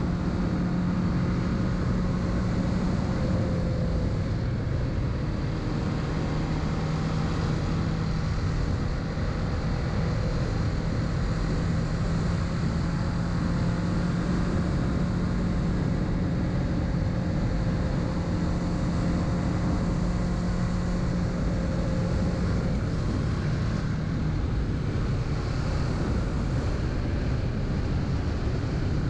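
Kawasaki Z650 parallel-twin engine running at a steady speed on the move, holding an even engine note, with wind noise over the microphone.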